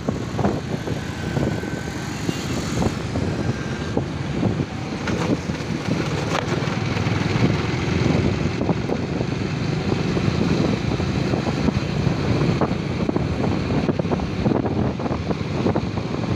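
Motorcycle engine running steadily while riding along a road, with wind buffeting the microphone.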